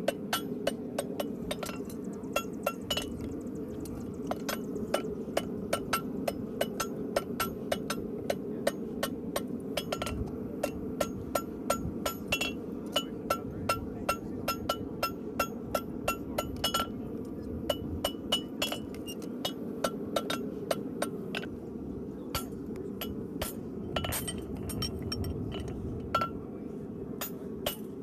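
Farrier's hammer striking a steel horseshoe on an anvil, with a ringing metallic note on each blow, shaping the shoe. The blows come two or three a second in runs with a few short pauses, over a steady low rush.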